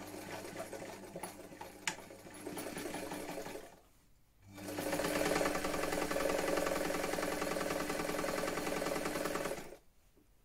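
Vintage electric sewing machine stitching in two runs: a quieter run of about four seconds with one sharp click partway through, a brief stop, then a louder steady run of about five seconds that cuts off near the end.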